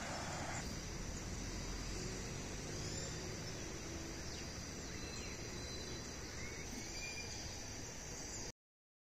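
Floodwater rushing over a submerged low bridge, a steady low rush, under a constant high insect drone with a few short bird chirps. All sound cuts off suddenly just before the end.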